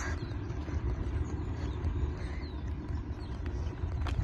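Low, uneven rumble of wind on a handheld phone's microphone, with a single click a little before the end.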